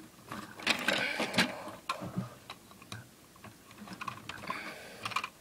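Irregular clicking and rattling of small plastic Lego pieces being handled, thickest in the first couple of seconds, then a few scattered clicks.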